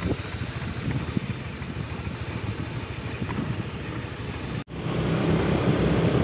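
Motorcycle engine running while riding, with wind rushing over the microphone. The sound breaks off for an instant about two-thirds of the way through, and the engine comes back louder.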